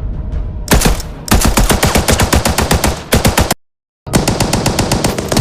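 German WW1 Maxim machine gun firing long bursts of rapid, evenly spaced shots. Firing starts under a second in, cuts off abruptly for about half a second past the middle, then carries on.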